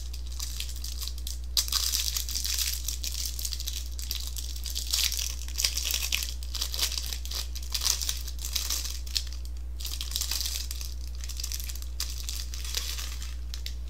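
Packaging of a baseball card hanger box crinkling and tearing as it is opened, in irregular bursts, over a steady low hum.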